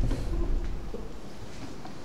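A deep low rumble from a dramatic score hit fades out over about the first second. It leaves quiet room tone with a few faint clicks.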